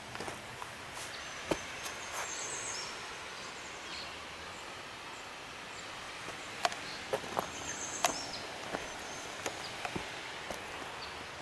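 Footsteps on a gravel and dirt forest trail, an uneven series of sharp crunches and snaps, thickest about two-thirds of the way through, over a steady outdoor hiss. A brief high chirping comes in about eight seconds in.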